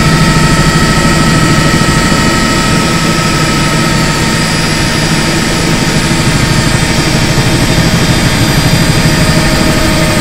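Helicopter engine and rotor noise heard from inside the cabin in flight: a loud, steady drone with constant whining tones over it.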